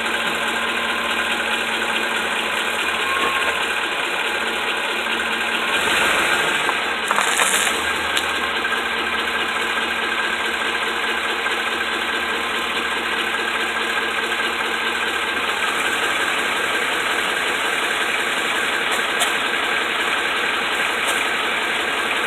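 2008 Ford F-150 4x4 pickup running steadily, carrying an unidentified strange noise that the owner is asking about. The sound swells briefly about six seconds in.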